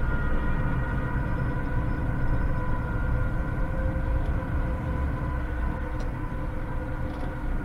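A low, steady rumbling drone with several held tones above it, sci-fi soundtrack ambience, easing a little near the end.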